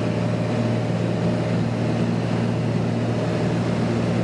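Light aircraft's engine and propeller running steadily in flight, heard inside the cockpit as an even drone with no change in pitch.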